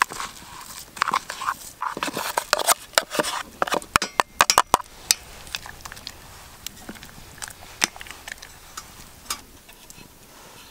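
Cooking sounds at a metal pot: food scraped off a dish into the pot with clicks and scrapes of utensil on metal, a quick run of sharp clicks about four seconds in, then sparser clicks as the pot is stirred with a wooden spoon.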